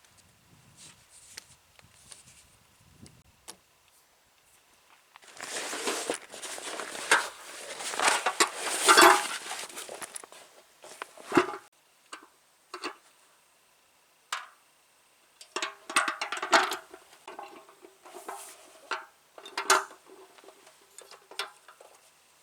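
Gear being handled: a long stretch of loud rustling, then scattered clicks and clinks, some with a short metallic ring.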